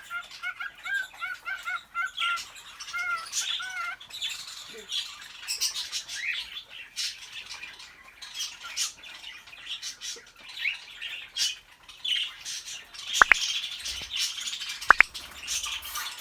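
Cockatiels in an aviary: a quick run of repeated warbling whistle notes in the first few seconds, typical of a male cockatiel's courtship whistling. Steady background chirping and scattered light clicks and taps run throughout, with two sharp, very short loud calls near the end.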